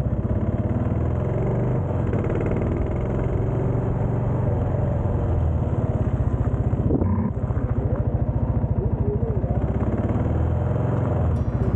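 Kawasaki KLR650's single-cylinder engine running steadily under way, with a brief dip in level about seven seconds in.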